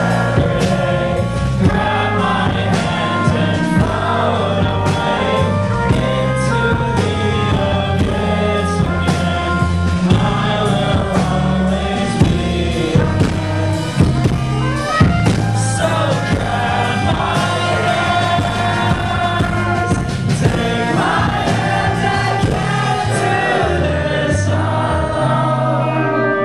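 A live rock band playing a song: drums, electric guitar and keyboard under a sung lead vocal, with steady drum hits throughout.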